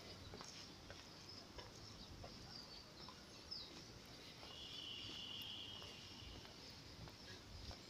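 Faint outdoor park ambience with birds and insects: a short falling bird chirp about three and a half seconds in, then a high, steady trill lasting about a second and a half.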